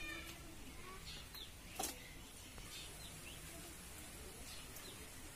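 Faint outdoor ambience with a few short bird chirps and a single light knock about two seconds in.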